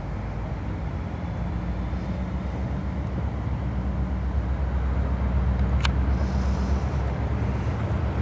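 Slow freight train passing close by: the CN SD75I and BCOL C44-9W diesel locomotives go past, then double-stack container well cars roll by with a steady low rumble of wheels on rail that grows louder. One sharp click about six seconds in.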